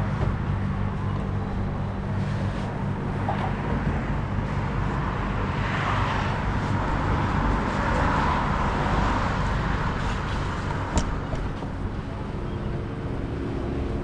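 Motor vehicle running, a steady low engine hum with road noise.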